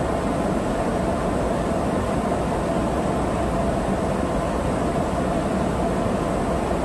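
Steady jet engine and airflow noise of a KC-135R Stratotanker in flight, heard from aboard the tanker: a constant rushing with a steady hum that does not change.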